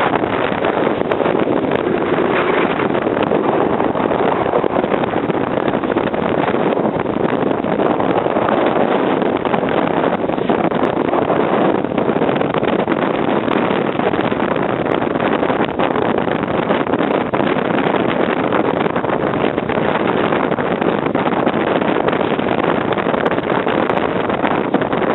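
Storm-force wind from the remains of a hurricane blowing across the microphone: a loud, steady rush of noise with no letup.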